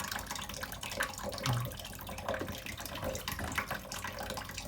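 Shallow bath water splashing in quick little bursts over a steady trickle, as a green-cheeked conure bathes.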